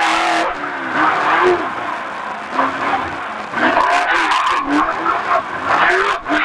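Off-road race truck's engine heard from inside the cab, revving up and down again and again under throttle over steady tire and wind noise. It eases off for a moment in the middle before picking up again.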